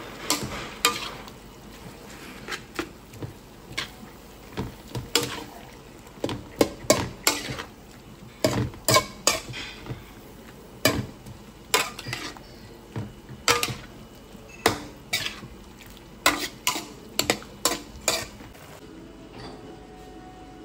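Metal utensil clanking against a steel wok while stir-frying noodles: irregular sharp knocks, several a few seconds apart, that stop shortly before the end.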